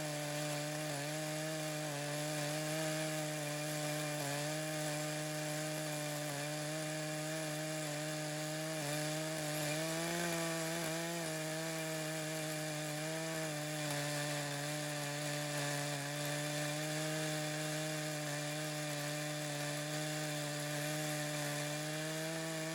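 Echo CS-590 two-stroke chainsaw running steadily at high revs under load, ripping through red oak, its pitch sagging slightly now and then as the chain bites.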